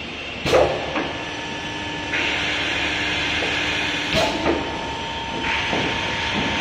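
Automatic glass drilling machine working through a drilling cycle. Sharp pneumatic clacks come as the clamp and drill head move, about half a second in and again around four seconds in. A steady hissing grind lasts about two seconds as the drill cuts the glass, and starts again near the end, over a faint motor hum.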